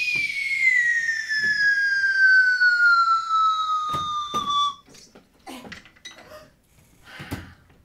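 A high whistle-like tone glides slowly and smoothly down in pitch for nearly five seconds and stops sharply, followed by a few soft knocks and taps.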